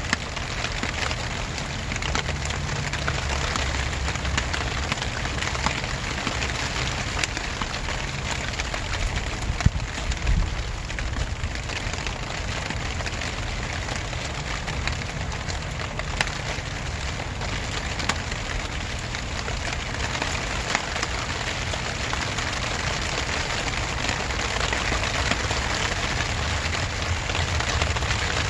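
Steady rain falling, with many single drops ticking close by over a low rumble.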